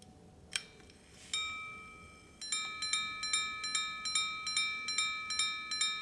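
Arnex 5-minute repeater pocket watch striking the time on its gongs. A sharp click as the repeat is set off is followed by a single ringing strike for the hour, then a fast run of two-note strikes, about three a second, counting the five-minute increments.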